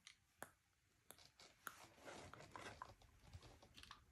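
Faint clicks and small rattles of plastic Lego bricks being handled and pressed on a model figure, a few sharp clicks in the first two seconds and quieter fiddling after.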